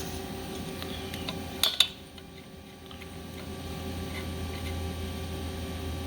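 Light metallic clinks of hand tools and fuel-line fittings as banjo bolts are worked loose, with two sharper clicks about one and a half seconds in, over a steady low hum.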